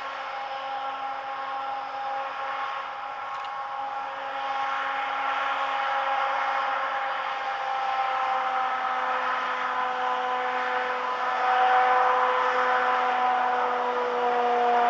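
Ludmilla diesel-electric locomotive's engine working under load as it hauls a sand train past, a steady whine of several tones that sinks slowly in pitch. It grows louder throughout, with the rumble and rush of the rolling wagons building up in the second half.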